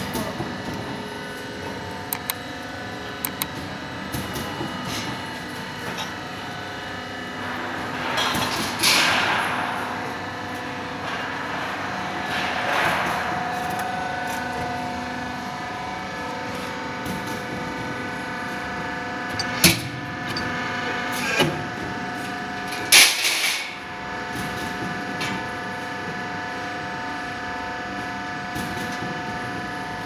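Cable tray roll forming machine running with a steady mechanical hum of several held tones, broken by a few sharp metallic clanks and knocks, the loudest about two thirds of the way in.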